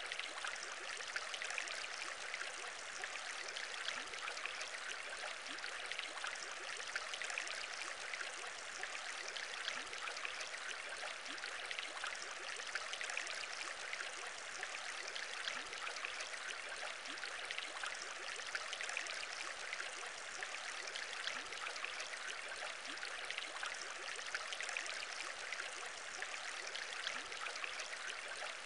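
Aquarium bubbling: a steady, unchanging stream of bubbles in water, a dense patter of tiny pops with the odd short rising blip.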